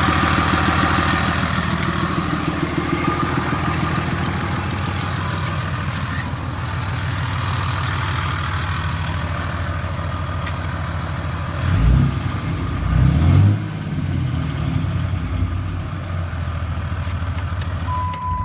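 Cummins 6.7-litre inline-six turbo-diesel idling steadily, with a noise the owner cannot place as either loose valve lash or an exhaust manifold leak. Two brief low rumbles come about twelve and thirteen seconds in, and a steady beep sounds near the end.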